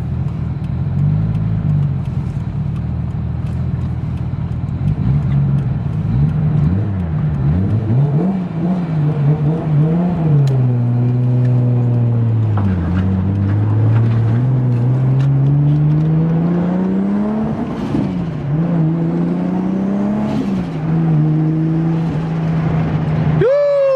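Freshly rebuilt Toyota 1JZ straight-six in a JZX100 Chaser driving, kept under a 4,000 rpm limiter while being run in. The engine note rises and falls with the throttle and gear changes, with one long steady climb in pitch about halfway through.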